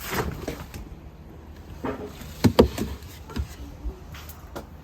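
Handling noise of harvested vegetables: a few separate knocks and rustles, the loudest pair about two and a half seconds in.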